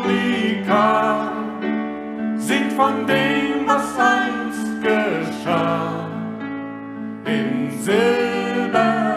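A woman singing held, gliding notes over an instrumental accompaniment.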